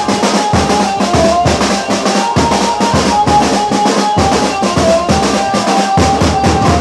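Loud dance music driven by heavy, rapid drum strokes, with a held, slightly sliding melody line over the drums.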